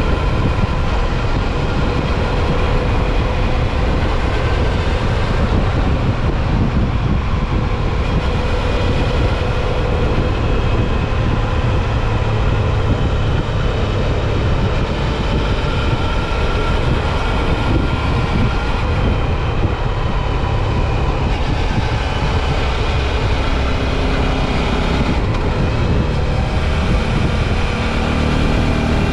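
Suzuki V-Strom 650 XT's V-twin engine running at a steady cruising speed under a constant rush of wind and road noise.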